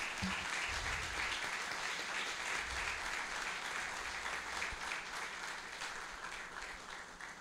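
Congregation applauding, many hands clapping steadily, then dying away near the end.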